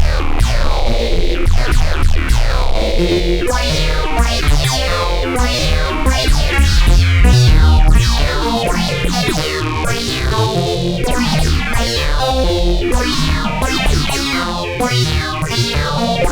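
Electronic synthesizer music: a Blipblox synth played through a modular Eurorack synthesizer, with a heavy bass line under repeated falling filter sweeps.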